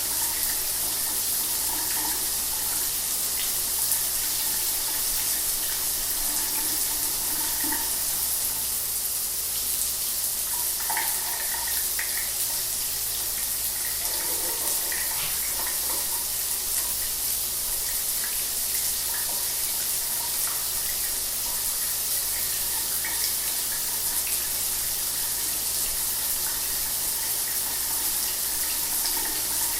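Shower water running steadily: an even hiss of spray with small splashes throughout.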